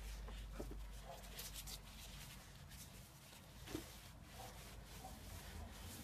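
Faint, irregular rubbing of a cloth wiping out a cast-iron cylinder bore of a small-block Chevy 350 engine block, with a soft knock a little past halfway.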